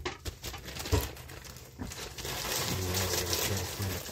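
Plastic freezer bag crinkling as frozen green peppers are taken out of it, after a couple of light knocks in the first second.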